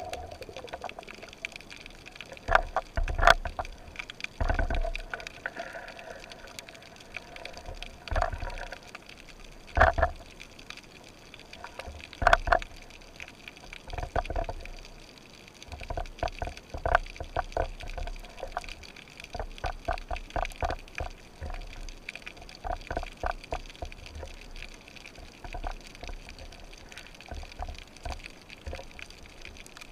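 Underwater sound picked up by a speargun-mounted camera: water moving and gurgling, with scattered sharp clicks and a few heavier knocks. The clicks come thickest about two-thirds of the way through.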